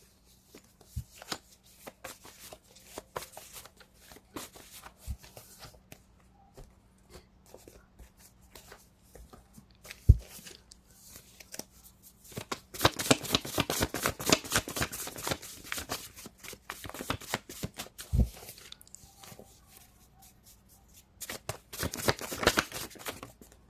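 A deck of cards being shuffled by hand: scattered soft card flicks at first, then a dense run of rapid shuffling for several seconds past the halfway point and a shorter run near the end. Two dull knocks, one a little before halfway and one later on, stand out as the loudest single sounds.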